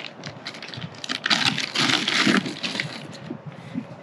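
Handling noise of plastic tomato trellis clips being worked onto string and plant stems: a run of small irregular clicks, with a rustle in the middle.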